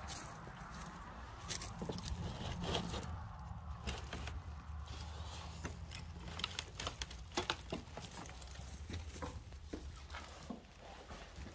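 Irregular footsteps with scattered small knocks, scrapes and crinkling over a steady low rumble.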